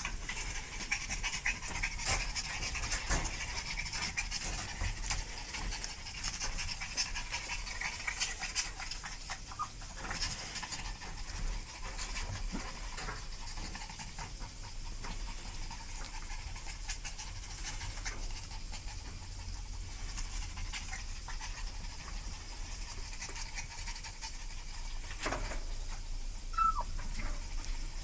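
Chihuahua puppies panting and scuffling about, with a louder flurry of high squeaks and knocks about nine seconds in and a short falling whimper near the end.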